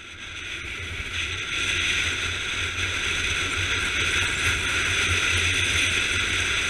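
A motorcycle riding at speed, heard from a camera mounted on the bike: a steady rush of wind and road noise over the engine's low hum. It fades in over the first second or so.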